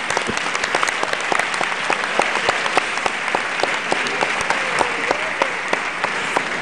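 Audience applauding: many hands clapping steadily in a dense, even stream of claps.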